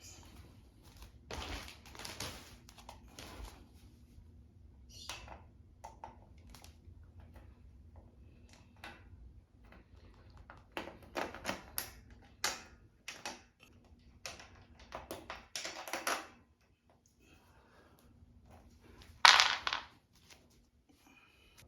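Hand assembly noises: irregular clicks, taps and short scrapes of small hardware (screws, washers, an Allen key) being handled and fitted to the cargo basket's windshield, with one louder clatter near the end.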